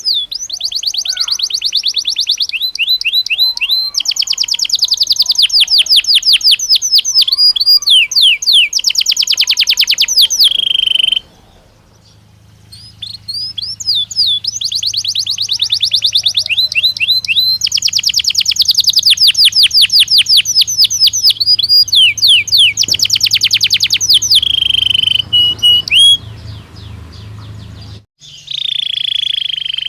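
Belgian canary singing: long runs of fast, rapidly repeated high notes and rolling trills, broken by a short pause about eleven seconds in and again shortly before the end.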